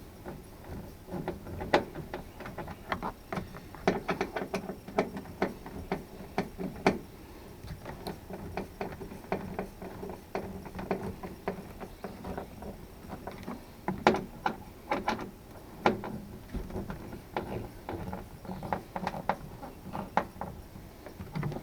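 Irregular clicks, taps and knocks of hand work on a pickup truck's door, as small parts are handled and fitted.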